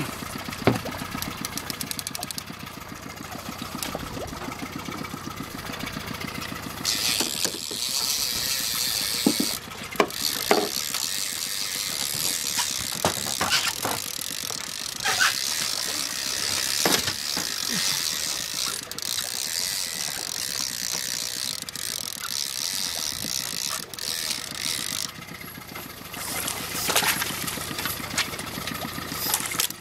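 Fishing reel being cranked in with a ratcheting clicking while a fish is fought to the boat, over a small outboard motor running at idle and hiss of wind and water. Near the end the hooked dentex splashes at the surface.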